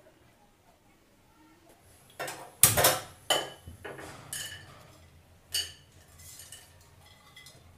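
Whole spices (cinnamon pieces, cardamom, cloves) dropped by hand into a small metal frying pan on a gas burner: a run of clinks and taps with short metallic ringing, starting about two seconds in, the loudest near the three-second mark, and thinning out after about six seconds.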